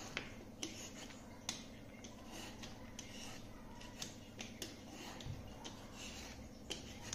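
Y-shaped vegetable peeler scraping the skin off a green gourd in short, irregular strokes, with sharp clicks between them.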